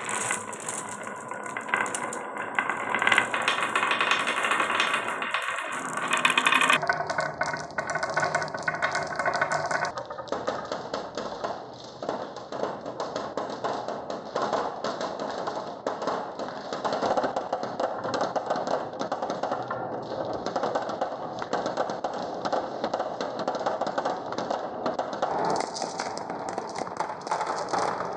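Glass marbles rolling and clattering down a wooden marble run, a continuous dense rattle of clicks and taps on wooden blocks and rails.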